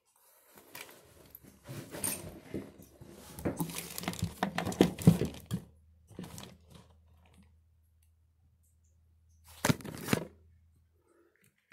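Irregular rustling, scraping and clicking of vacuum-cleaner motor parts being handled during reassembly, with a cluster of sharp clicks near the end.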